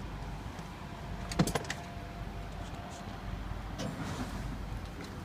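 Driver's door of a 2008 Peterbilt 388 truck cab being opened by its paddle handle: a sharp latch clack about a second and a half in, then a few lighter knocks and rustles.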